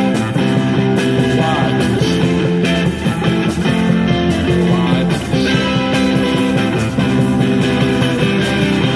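Live street-band music: guitar with clarinet and bucket drumming, a steady beat of strikes under sustained melody notes.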